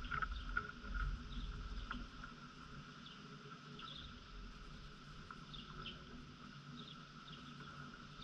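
Outdoor yard ambience: a steady high insect drone with short bird chirps scattered through it, over a low rumble. A few sharp clicks come in the first two seconds.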